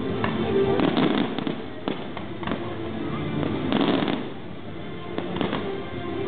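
Aerial fireworks shells bursting: a run of sharp bangs and crackles, densest about a second in and again around four seconds in.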